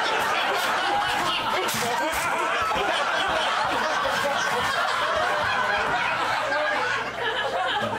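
A comedy club audience laughing together, a steady wash of many voices that eases off a little near the end.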